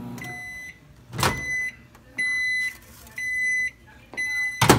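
Hamilton Beach microwave oven's running hum stops as the timer runs out, followed by its end-of-cycle beeps, about one a second. A loud knock sounds near the end.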